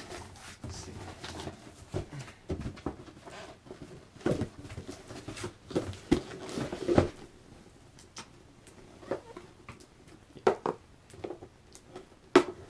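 A cardboard parcel being unpacked by hand: box flaps and packing paper rustling and crinkling, with irregular scrapes and knocks, the sharpest near the end.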